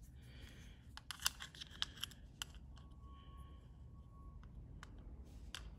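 Light clicks and scrapes of a dismantled switched socket's plastic housing and brass terminal parts being handled and fitted back together, several quick clicks in the first half and a few more near the end. A faint steady tone runs for about a second and a half in the middle.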